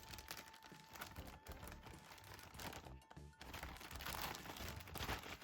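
Faint rustling and handling of paper manuals and packaging, in short irregular bits, with a faint steady tone under the first half.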